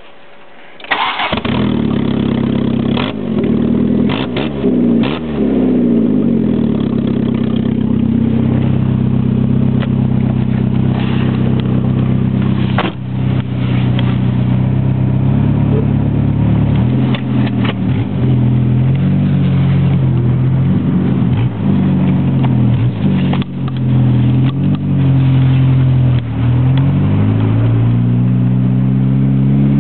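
1993 Volkswagen Golf's engine starting about a second in, then running loudly through a broken exhaust pipe, revved up and down several times between stretches of steady running.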